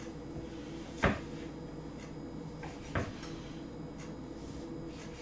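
Two sharp kitchen knocks about two seconds apart, the first louder, over a steady low hum.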